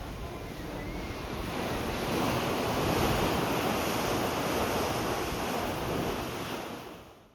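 Ocean waves rushing, with wind buffeting the microphone. The sound swells about two seconds in and fades out near the end.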